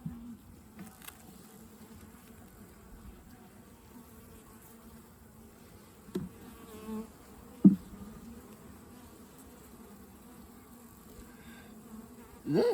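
Honeybees buzzing at an open hive: a steady hum of the colony, with single bees flying close past and buzzing louder, rising and falling in pitch, about six seconds in and again just before eight seconds.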